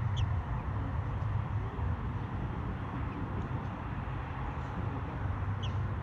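American robin nestlings begging with short, high, thin peeps, one right at the start and one near the end, with fainter ones between. Under them runs a steady low rumble.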